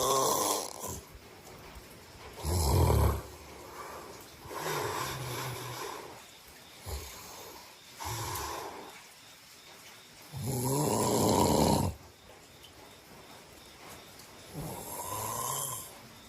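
A person snoring in sleep: a snore every two to three seconds, some loud and some softer.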